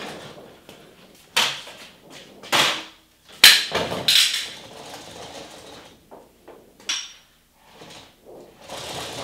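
Large sheet of seamless backdrop paper rustling and crackling in several loud bursts as it is pulled down from its ceiling-mounted roll and handled, with a sharp knock about three and a half seconds in.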